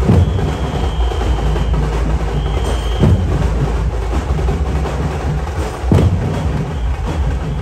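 Loud festival drumming: a dense, continuous drum beat with a heavy stroke about every three seconds. A shrill whistle is blown twice in the first three seconds, the first blast long and the second short.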